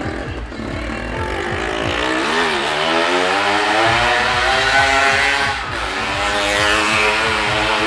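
Motorcycle engine running hard as the bike circles the wall of a well-of-death pit. Its pitch climbs over a few seconds, dips briefly about two-thirds of the way through, then holds high.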